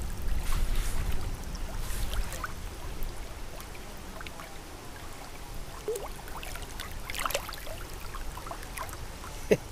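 Water splashing and trickling as a caught pike is returned to the loch, with a few short splashes and a sharp knock near the end.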